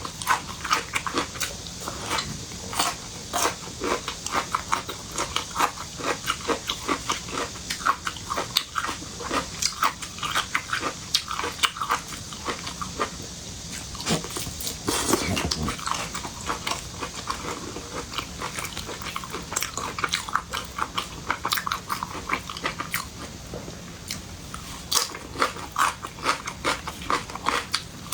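Close-miked mouth sounds of a person eating seafood: continuous wet chewing, smacking and crunchy bites.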